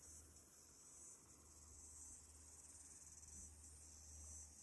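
Faint, steady high-pitched chirring of insects in dry summer grass, with a low rumble underneath.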